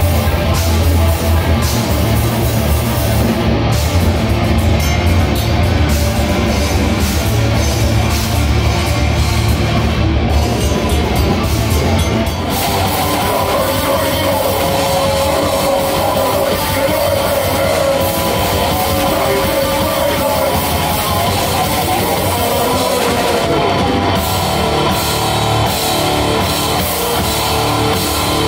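Live metal band on stage: distorted electric guitars, bass and drums playing at full volume. About twelve seconds in it cuts to a different band's set, black metal with a long held guitar note.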